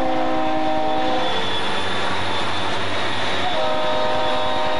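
Conrail diesel freight locomotives sounding their multi-note air horn chord, one blast ending about a second in and another starting near the end, over the steady rumble of the engines and the passing train.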